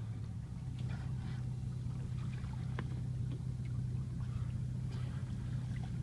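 A boat's outboard engine running steadily, a constant low hum, with a few faint ticks over it.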